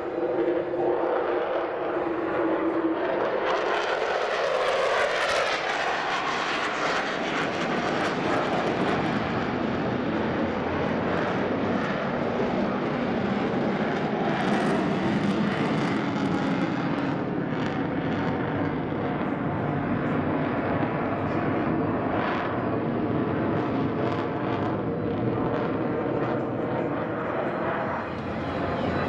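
F-16 fighter jet's engine running during a display flight: a steady loud jet noise, its pitch falling over the first few seconds as the jet passes.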